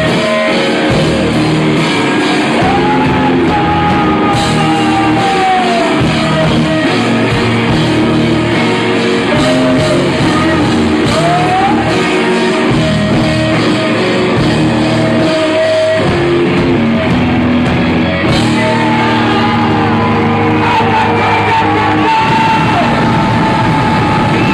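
Live rock band playing loudly, with a singer's voice over guitars and drums, recorded from the audience.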